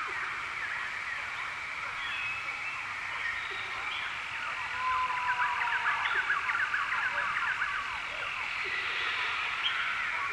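Nature ambience: a dense chorus of small chirping animal calls over a steady high hiss, with a flurry of quick chirps from about five to eight seconds in and one held whistle-like note near five seconds.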